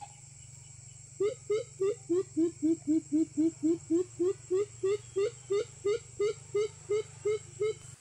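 An animal calling: a run of about two dozen short, pitched, slightly rising notes, about four a second, starting about a second in, over a steady low hum.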